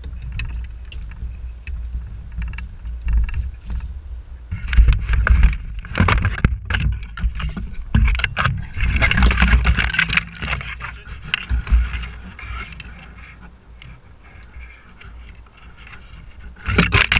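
Tree branches and leaves rustling, scraping and snapping around a drone stuck in the tree as someone climbs up through the branches to reach it, over a steady wind rumble on the microphone. The rustling is loudest in the middle, eases off, then flares again at the end as the drone is grabbed.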